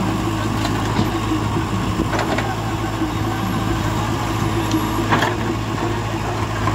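JCB 3DX backhoe loader's diesel engine running steadily while the backhoe works. A couple of short knocks of stone against the bucket and rock pile come about two seconds in and again near five seconds.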